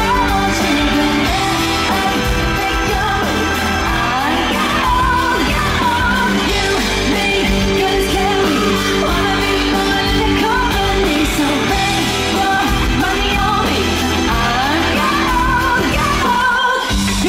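A live pop-rock song: a female lead vocal over a full band with electric guitar, heard from the audience in a large venue. The low end of the band drops out for a moment near the end.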